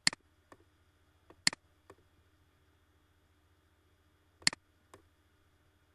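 Computer mouse clicking: three sharp clicks, each followed by a fainter click about half a second later, over a faint steady hum.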